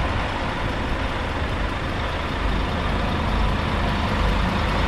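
Scania N250UD double-decker bus's diesel engine idling steadily: a low rumble with a faint steady whine above it.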